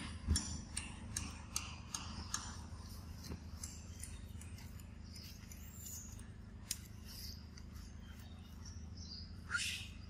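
Faint high animal chirps over a steady low hum, with a run of short clicks in the first couple of seconds and one short, louder call about nine and a half seconds in.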